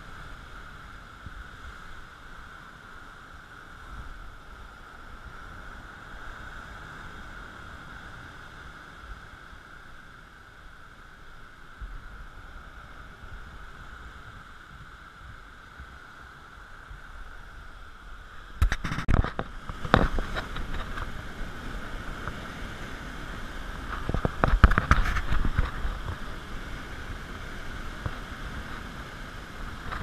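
Ocean surf surging and churning through a narrow rock channel, with a steady wash for most of the time and two loud rushes of breaking water, about two-thirds of the way in and again a few seconds later.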